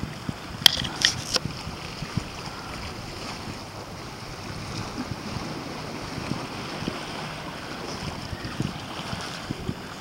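Wind buffeting the microphone over small ocean waves washing against jetty rocks, a steady rushing noise. A few sharp clicks come about a second in.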